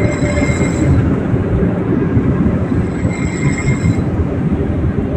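Steady road and engine rumble inside a moving vehicle at highway speed, with a faint high whine twice.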